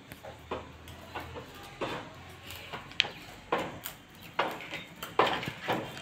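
Plastic ride-on rocking horse clacking and rattling on a concrete floor as a toddler rocks it: short knocks about twice a second, with one sharper click about three seconds in.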